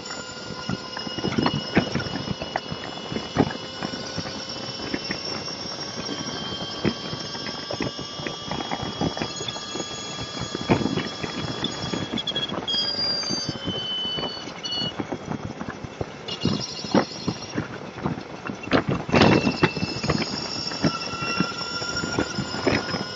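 Motorcycle riding at freeway speed, heard through a bike-mounted camera: several steady high whining tones that drift slightly in pitch over road noise, with frequent sharp knocks and rattles. A cluster of loud knocks comes about nineteen seconds in.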